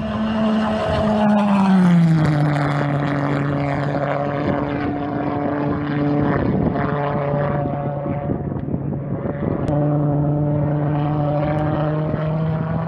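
Radio-controlled model aircraft engine droning in flight, a steady pitched note that drops in pitch about a second and a half in, fades for a few seconds in the middle, then comes back steady.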